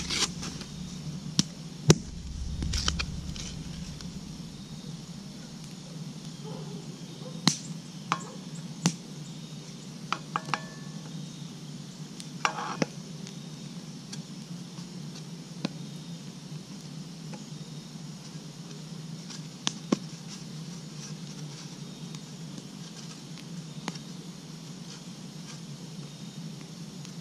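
A can of refrigerated biscuit dough being opened: the paper wrapper peels off, then there is one sharp pop about two seconds in as the tube bursts open. After that come scattered light clicks and taps as the dough rounds are set into a cast iron Dutch oven, over the faint crackle of a campfire.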